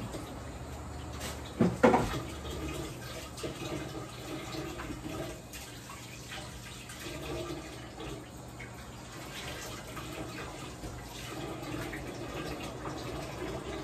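Water running from a tap into a sink, with a sharp knock about two seconds in and a few lighter clicks.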